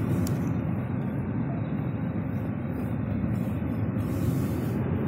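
Steady cabin noise inside a Tesla Model 3 under way: an even rumble of tyre and road noise with the climate-control fan blowing on a high setting.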